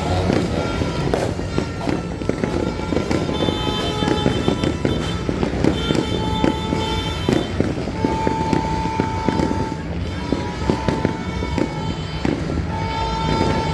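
Firecrackers crackling and popping in dense, irregular strings, with a held high tone sounding several times over them, each lasting a second or two.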